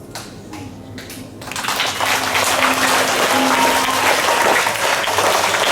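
Audience applause that breaks out about one and a half seconds in and carries on steadily, over faint background music.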